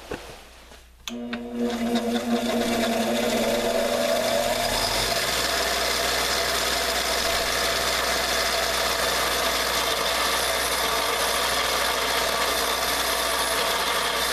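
A power grinder switches on about a second in and grinds the steel head of an old ball peen hammer, a steady motor hum under a continuous grinding hiss, to take out the mushroomed, compressed metal and reprofile it.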